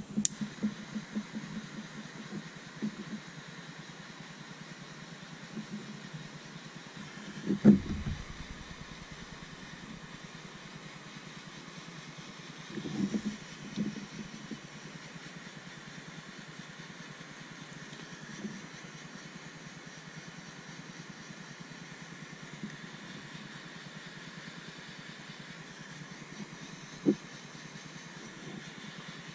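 Hands working a plastic wiring connector and a small tool, with soft knocks and handling thumps now and then, the loudest about eight seconds in, over a steady background hiss.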